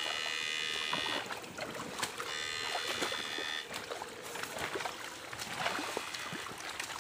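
Electrofishing device giving a high-pitched electrical whine in two bursts of about a second each as it is switched on and off in the water. A faint steady hum sits under it, with splashes and knocks in the water in the second half.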